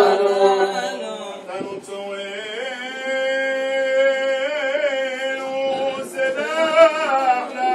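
Men chanting Selichot penitential prayers, with one voice holding long notes that waver in melismatic ornaments from about a third of the way in.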